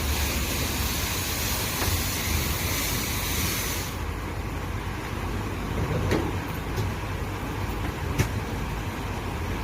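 High-pressure water spray hissing against a car and cutting off abruptly about four seconds in, over the steady low rumble of an idling engine. A few sharp clicks follow.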